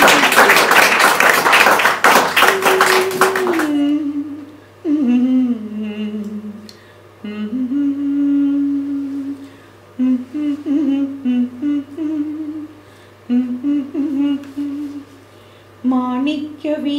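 Audience clapping for about four seconds, then a woman's unaccompanied voice humming a slow melody in long held notes, phrase after phrase with short breaks. The humming is an introduction to the Sanskrit invocation she chants next.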